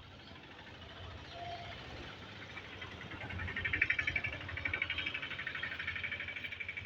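A rapid, even pulsing call, many pulses a second, from an animal such as a frog or insect. It swells about halfway through and carries on steadily.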